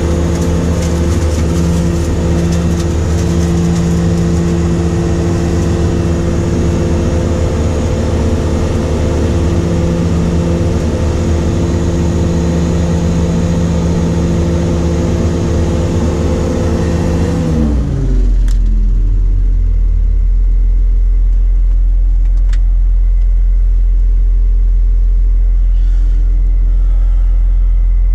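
New Holland grape harvester running steadily, heard from inside the cab. About two thirds of the way in, its pitch falls as it winds down to idle, leaving a steady low rumble.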